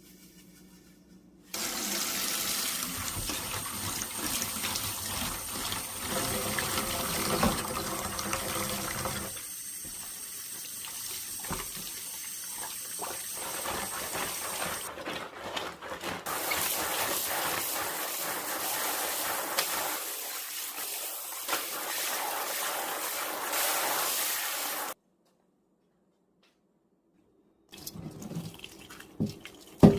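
Water running from a tap into a sink, splashing over things being rinsed, the flow uneven for a few seconds in the middle. It cuts off suddenly a little before the end, followed by a few faint knocks.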